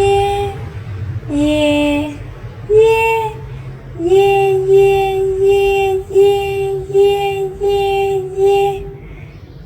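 A high-pitched voice repeating "yeah" in a sing-song tone: three drawn-out yeahs on slightly different notes, then a quick, even run of about eight on one note.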